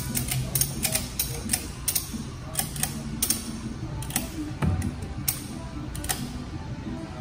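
Ratchet strap being tightened by hand: the ratchet's pawl clicking in short, irregular runs as the handle is worked back and forth, drawing the strap tight.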